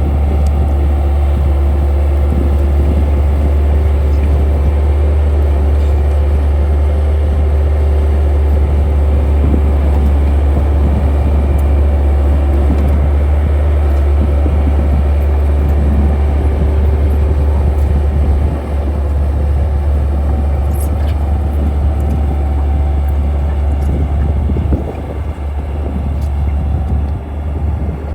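Skid steer engine running steadily at working revs with a deep drone, the level dipping briefly a couple of times in the last third as the load or throttle changes.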